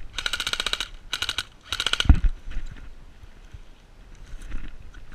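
Airsoft electric rifle, a G&G TopTech 416, firing on full auto: three quick bursts of rapid, even shots, each under a second long, followed by one low thump just after the third burst.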